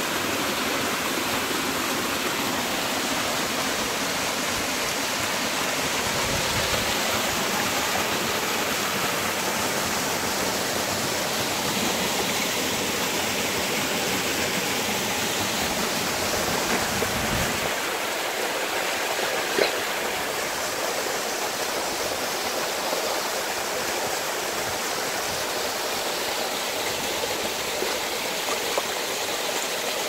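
Small waterfall pouring into a rocky pool: a steady rush of falling water. A single sharp click sounds a little over two-thirds of the way through.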